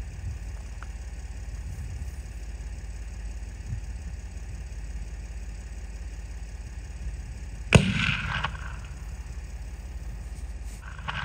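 A single muzzleloader rifle shot about three-quarters of the way through: one sharp crack with a short ringing tail, over a steady low rumble.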